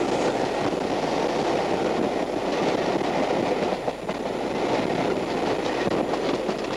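A passenger train running along the track, heard from on board: a steady rumble of wheels on rail, with light clicking from the wheels in the second half.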